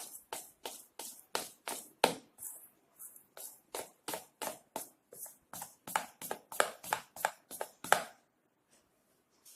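Gram-flour (besan) dough being mixed in a bowl: a steady run of quick stirring strokes, about three a second, that stops about eight seconds in.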